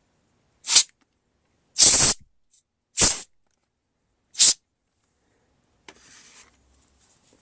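Four short blasts of air blowing dust out of a DVD recorder's disc drive, the second a little longer than the others, followed by a faint rustle near the end.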